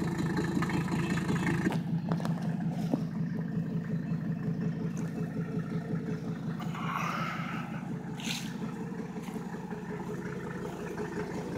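Mercedes-Benz W123 300D Turbodiesel's five-cylinder diesel engine idling steadily with an even pulse, warming up just after a cold start following three months sitting.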